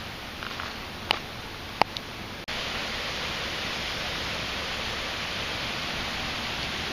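Steady rushing noise of creek water, with two sharp clicks in the first two seconds. About two and a half seconds in, the rushing cuts abruptly to a louder, even rush.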